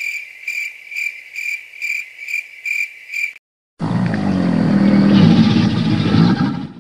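Cartoon sound effects: a high, cricket-like chirping that pulses about twice a second for the first three seconds. After a brief gap comes a rough, low rumbling noise that cuts off sharply at the end.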